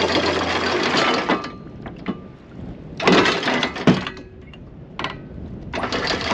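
Anchor windlass hauling in 10 mm anchor chain, running steadily and stopping about a second and a half in. Then a 33 kg Rocna Vulcan anchor clunks and clinks against its stainless steel bow fitting in several separate metallic knocks as it is drawn up and seated.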